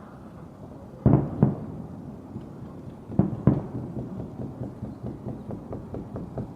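Fireworks going off: two pairs of sudden booms with a trailing rumble, about a second and three seconds in, followed by a fast run of smaller pops and crackles.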